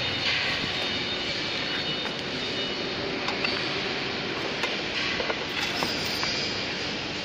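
Steady loud background noise with a few light clicks and knocks of steel frame tubes being handled and fitted together.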